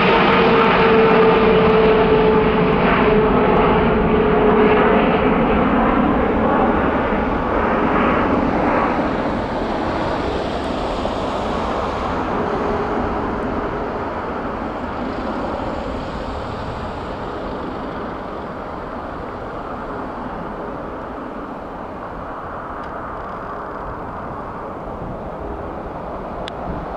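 Jet engines of a Qatar Airways Boeing 777 climbing away after takeoff: loud at first, with a steady tone inside the noise that sinks slightly in pitch, then fading steadily as the aircraft draws away.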